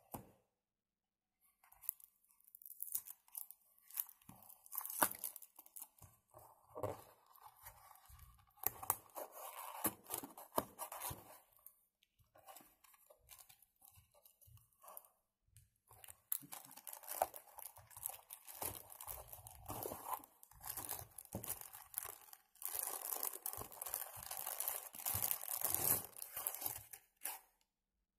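Hands opening a cardboard box and pulling a small Bluetooth speaker out of its packaging: irregular handling noises and clicks of cardboard in bursts, easing off for a few seconds about halfway through.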